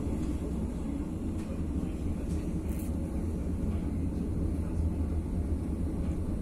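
Passenger train in motion heard from inside the carriage: a steady low running rumble, with a brief light tick about three seconds in.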